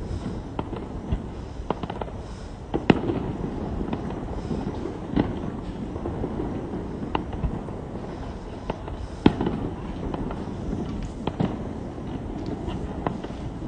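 Aerial fireworks bursting: irregular bangs and pops every second or so over a steady rumble. The two sharpest bangs come about three seconds in and about nine seconds in.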